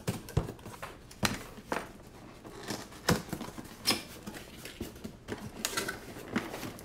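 Box and packaging of a new radio transmitter being opened by hand: irregular clicks, scrapes and rustles.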